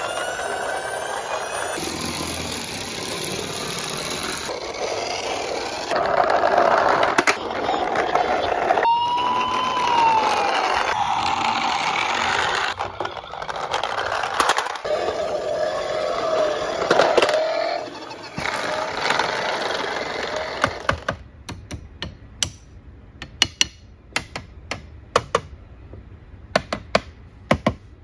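Plastic toy vehicles rolling down a wooden plank ramp, their wheels rumbling steadily on the wood, with a brief falling tone about ten seconds in. From about two-thirds of the way through, the rumble stops and sharp clicks and knocks of plastic toys follow.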